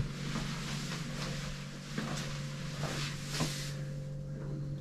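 Room tone: a steady low hum with faint scattered clicks and rustles.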